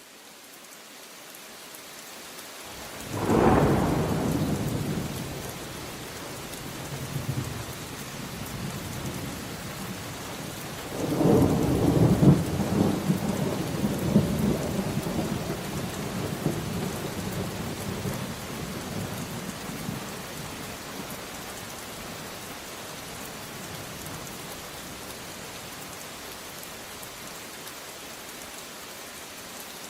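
Steady rain falling through a thunderstorm, fading in at the start. A sharp thunderclap breaks about three and a half seconds in and rumbles away, and a longer rolling peal of thunder follows from about eleven seconds in, dying down over several seconds.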